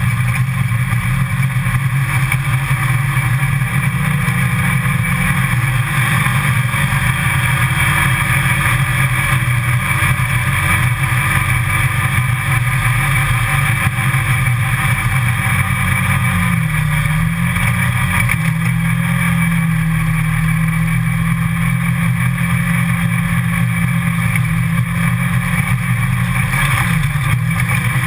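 Side-by-side UTV's engine running at a steady cruising throttle while driving along a gravel and dirt trail, heard from inside the open cab. About two-thirds of the way through, the engine note briefly dips and climbs back.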